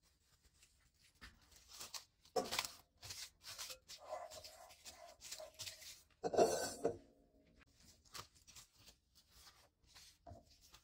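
Plastic cling film being pulled and stretched over a glass bowl: irregular crinkling and rustling with short squeaky tones, loudest a little after six seconds in. Near the end, a few faint rustles as a cloth tea towel is laid over the bowl.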